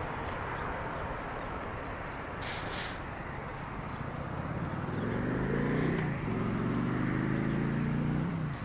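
Distant jet engines of an Airbus A320-family airliner on short final, a broad rush that eases through the first half. About five seconds in, a low droning engine note with a steady pitch comes in and becomes the loudest sound, dipping briefly near six seconds.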